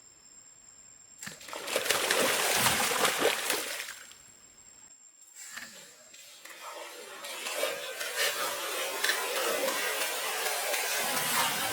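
Water splashing and sloshing in two bouts: a loud burst starting about a second in and lasting a few seconds, then a steadier spell of splashing with small clicks building from about halfway through.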